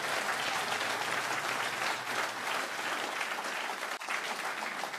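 Audience applauding steadily, a hall full of people clapping.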